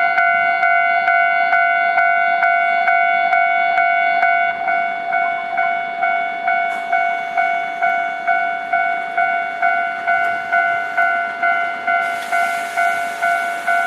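Japanese level crossing warning bell ringing, a steady ding-ding at about three strikes a second. Near the end a broad rushing hiss joins as a train comes through.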